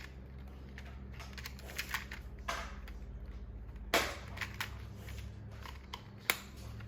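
Scattered clicks and knocks of plastic dishwasher control-panel parts and the UI board's wiring connector being handled and fitted, the loudest knock about four seconds in and a sharp click near the end.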